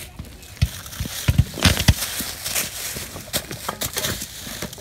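Footsteps crunching and rustling through dry fallen leaves, with several heavier thuds in the first two seconds, as children run and drop onto the leaf-covered ground.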